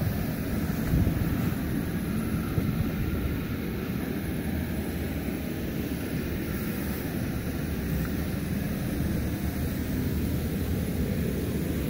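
Electric blower fan of an inflatable bouncy castle running steadily, a constant low rumble that keeps the castle inflated.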